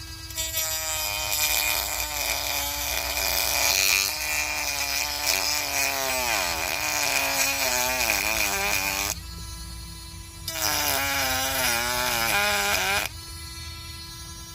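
Small rotary tool spinning with a steady whine, then pressed into the material twice: loud grinding noise while the motor's pitch sags and wobbles under load, before it spins freely again.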